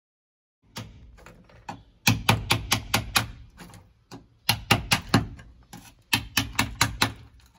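Quick, sharp hand-tool strikes chipping brittle asphalt sound-deadening pads off a car's steel floor pan. They come in three bursts of several strikes a second, each strike loud and short.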